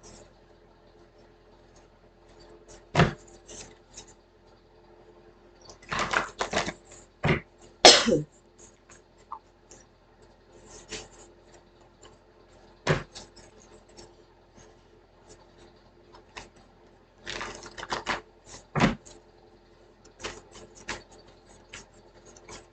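Cards and small objects handled on a table: scattered taps and clicks, with two flurries of rustling knocks around six to eight seconds in and again around seventeen to nineteen seconds in, over a faint steady hum.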